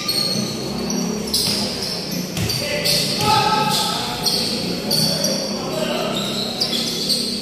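Basketball game on an indoor court: the ball bouncing and sneakers squeaking in many short high-pitched chirps on the court surface, over a background of crowd chatter echoing in a large hall.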